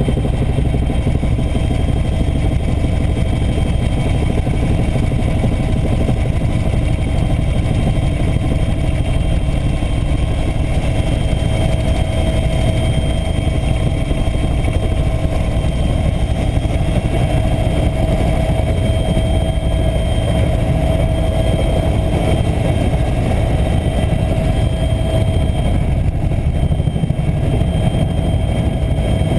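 A steady drone of running machinery, loudest in the low range, with a couple of faint steady tones above it and no change in level throughout.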